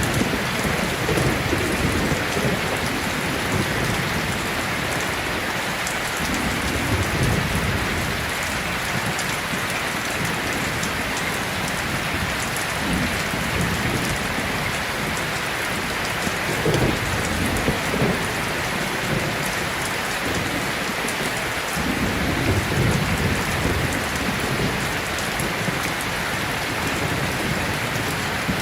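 Steady heavy rain falling, with low rumbles of thunder swelling up several times.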